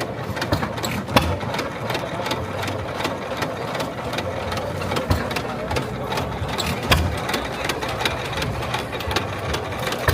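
An engine running steadily, with a mechanical hum and many sharp clicks and knocks over it; the loudest knocks come about a second in and again near seven seconds.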